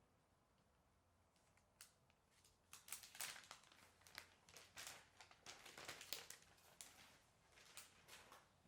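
Faint rustling and crinkling of packaging being handled during an unboxing, with a click a little before two seconds in. The crackling is densest from about three seconds in until near the end.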